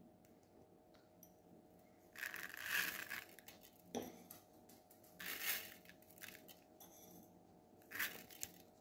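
Uncooked rice grains poured onto a slab of ground meat in a clay tagine in three short rustling bursts, with a single light knock about four seconds in.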